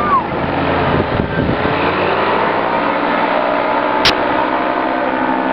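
Paramotor engine and propeller running as it passes low overhead, the engine's pitch dropping as it goes by, then a steady drone as it flies away. A single sharp click about four seconds in.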